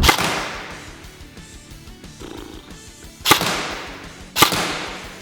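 Three single shots from an airsoft M4 rifle on semi-automatic: one at the start, then two more about three seconds and four seconds in. Each is a sharp crack with a fading ring after it.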